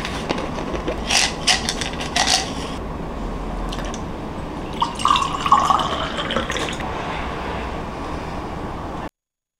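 Clicks and rattles from a plastic supplement jar being opened and handled, then water poured from a filter pitcher into a ceramic mug for about two seconds. The sound cuts off suddenly shortly before the end.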